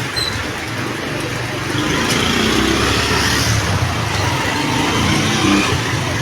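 Heavy rain falling steadily, with a low rumble that grows louder about two seconds in and holds.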